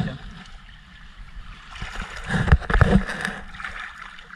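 Water lapping and sloshing against a boat's hull at the waterline, with a louder spell of splashing and knocking about two seconds in.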